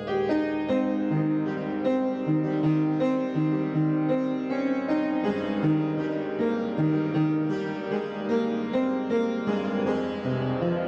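Background instrumental music with a melody of plucked or struck keyboard-like notes over held bass tones.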